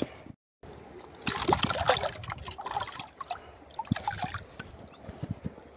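Water splashing and sloshing in a steel bowl as vegetables are rinsed in a shallow stream, loudest a little over a second in, then lighter splashes.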